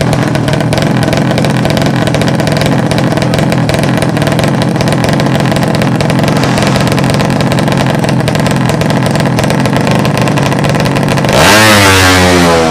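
Motorcycle engine of the 200cc class idling steadily, as in a sleep-engine idling contest, then revved hard about eleven seconds in, its pitch rising and falling.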